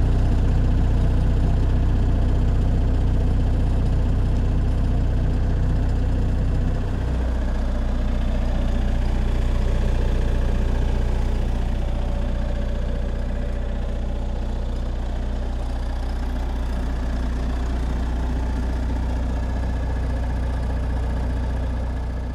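MEP-802A 5 kW military diesel generator set running steadily, warming up after a cold crank before any load is switched over. The tone shifts slightly about seven seconds in.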